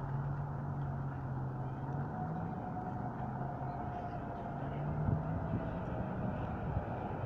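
Street traffic with a vehicle engine running at a low, steady pitch, and a faint whine that slowly falls in the middle.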